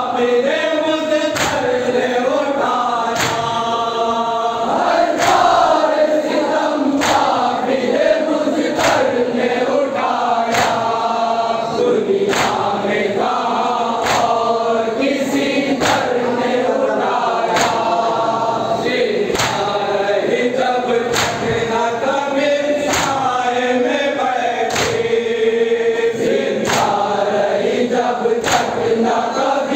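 Men chanting a noha lament in unison, led by one voice, with the whole group striking their chests (matam) together about every two seconds, keeping time with the chant.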